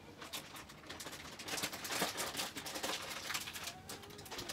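Plastic snack bag crinkling and crackling as it is handled and pulled open, the crackles coming thicker from about one and a half seconds in.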